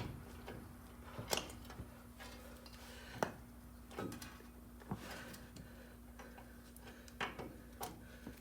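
Scattered light metallic clicks and knocks, about six over several seconds and irregularly spaced, as a brake rotor with its freshly greased wheel bearings is worked onto the spindle of a Ford E-150 van's front axle.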